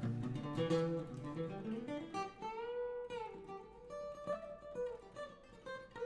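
Acoustic guitar picked and strummed in an instrumental passage, with a held note that bends up and back down in pitch about halfway through.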